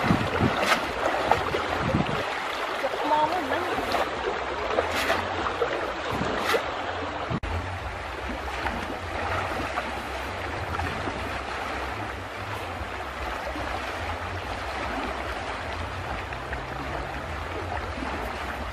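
River water rushing steadily over a shallow, stony riverbed, with several short splashes from wading feet and a cast net in the first seven seconds.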